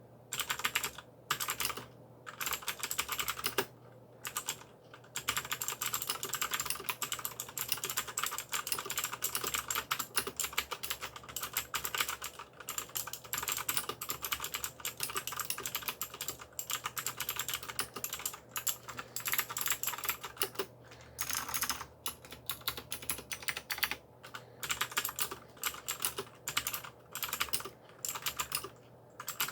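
AULA mechanical keyboard with blue (clicky) switches being typed on in fast runs of sharp clicky keystrokes, broken by short pauses.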